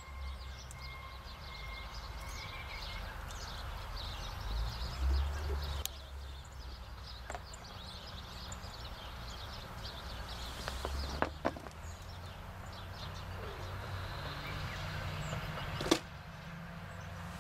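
Brass clock movement being handled and lowered into a plastic tub of cleaning solution: a few light clicks and knocks, the sharpest near the end. Behind it, faint bird chirps and a steady low rumble of outdoor ambience.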